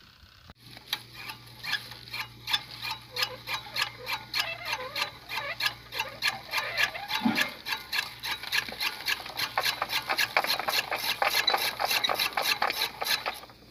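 Hand-cranked saag cutter chopping leafy greens and their stalks: the turning blade wheel slices with quick, regular clicks, about five a second.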